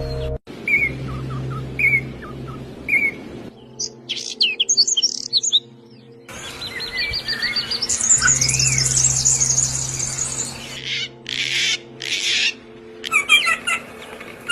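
Songbirds calling, in a string of short clips that change abruptly every few seconds: single chirps about once a second, then rapid high chirps, a long fast trilling song, and quick chirping near the end.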